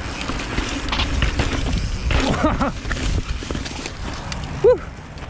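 Mountain bike riding down a steep rock roll: tyres scrabbling over the rock, the bike knocking and rattling. Short shouts come about two seconds in, and a sharp loud yelp near the end.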